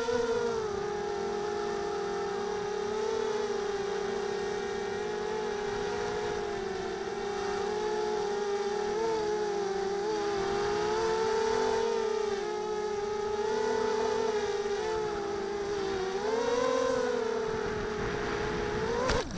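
Quadcopter's Sunnysky 2204 2100kv brushless motors and propellers whining in flight, heard from the onboard camera. The pitch wavers with throttle and rises briefly near the end.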